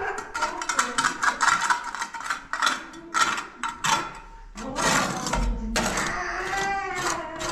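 Irregular knocks and clattering of hard objects, mixed with voices.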